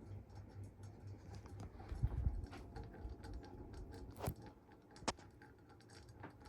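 Mistralaire MCFA48 industrial ceiling fan running with shot bearings: a low, pulsing hum under a faint, uneven ticking and rattling, with two sharper clicks about four and five seconds in.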